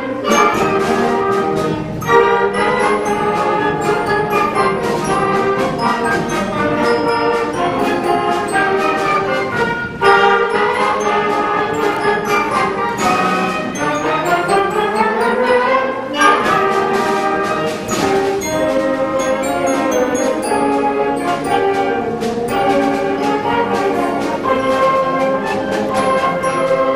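School concert band playing, brass and winds holding full sustained chords, with rising sweeps in pitch near the start and again about halfway through.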